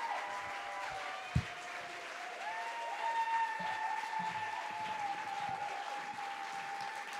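Audience applauding, with long held tones running over the clapping and a single thump about a second and a half in.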